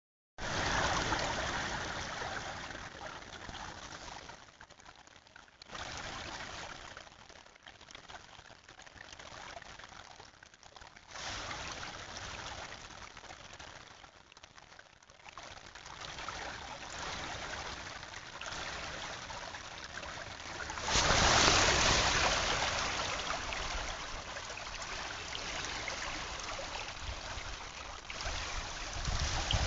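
Creek water running, a steady rush that jumps up suddenly several times and fades slowly after each surge.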